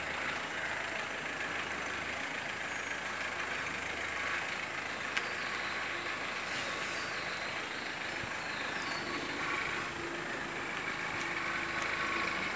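Nissan Micra hatchback pulling slowly away at low speed, its engine and tyres making a steady noise, with one sharp click about five seconds in.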